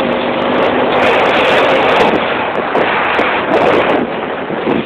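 Heavy wind rush on the microphone over a motorcycle engine. A steady engine note is heard under the wind and fades out about a second in.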